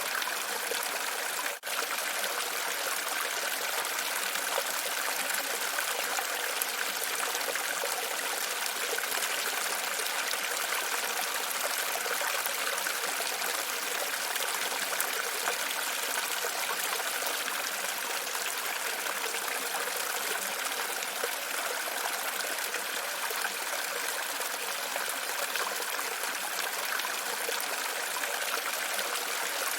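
Steady sound of running, splashing water, which cuts out for a split second about one and a half seconds in.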